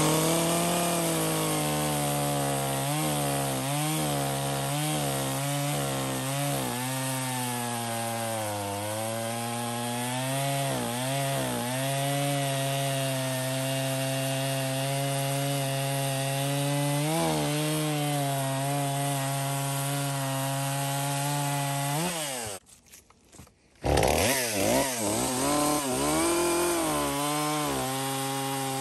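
Stihl MS250 two-stroke chainsaw running at high revs while cutting wood, its engine pitch repeatedly sagging and recovering as the chain loads in the cut. The sound breaks off for about a second and a half a little past two-thirds of the way through, then the saw is running again with its pitch rising and falling.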